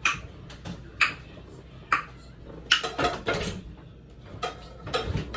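Dishes and cutlery clinking and clattering: three sharp clinks about a second apart, then a busier run of clatter in the second half.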